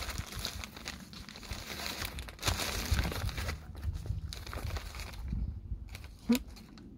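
Crinkling and rustling of handled food packaging, with a low rumble underneath, for about five seconds, then quieter with a single sharp click near the end.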